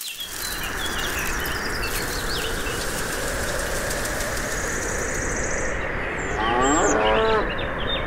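A cow moos once, a single falling call about six seconds in, over a steady rushing noise with birds chirping.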